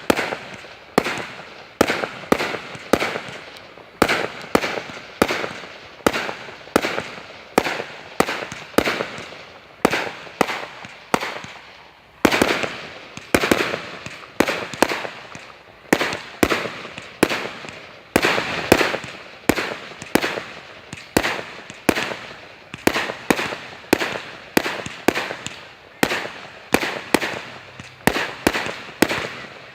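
Fireworks going off in a continuous barrage of sharp bangs, about one or two a second, with crackling between them that thickens twice along the way.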